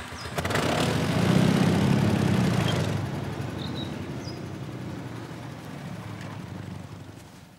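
Small 5.8 kVA petrol generator engine running just after starting, loudest about a second or two in, then losing power and dying away near the end: it won't keep running.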